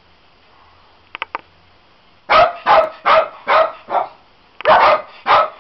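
Small dachshund barking, about eight short, loud barks in quick runs. They follow three quick, sharp little sounds about a second in.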